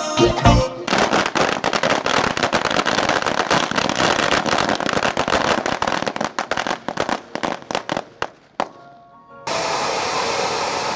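A string of firecrackers going off in a rapid, dense crackle for several seconds, after electronic dance music breaks off at the start; the crackling thins out and stops, and a steady hiss follows near the end.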